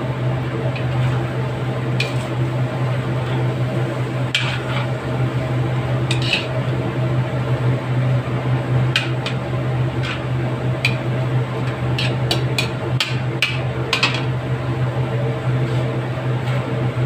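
A metal spoon scraping and clinking against a metal wok as chicken in a sticky glaze is stirred, in scattered strokes that come quicker near the end. Under it runs a steady low hum.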